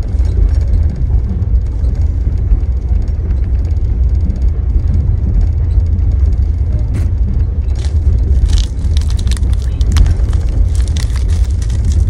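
Steady low rumble of a moving sleeper train carriage. From about seven seconds in, a plastic wafer wrapper crinkles and crackles as it is handled.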